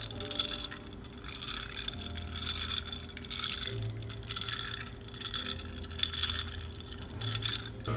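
Ice cubes in a glass of iced latte clinking repeatedly against the glass and each other as a straw stirs them.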